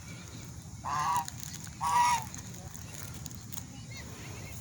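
A swan calling twice, two short loud honks about a second apart.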